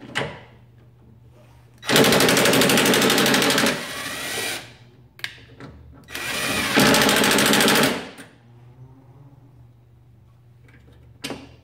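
Craftsman C3 19.2-volt cordless impact driver set to its lowest speed, hammering on a headlight-assembly bolt in two bursts of about two seconds each with a rapid rattling of impacts.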